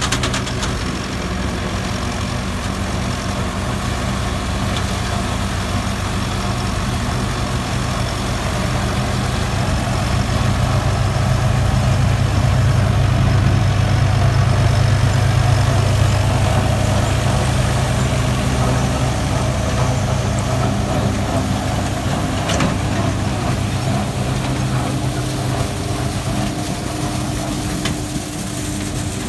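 Massey Ferguson 385's four-cylinder diesel engine running steadily under load, driving a wheat straw chopper through its PTO, with the chopper machine running. It grows louder toward the middle as the tractor passes close, then eases off.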